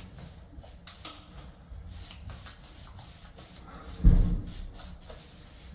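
Small paintbrush stroked over damp filler on a ceiling: a run of faint, quick brushing swishes, with a dull thump about four seconds in.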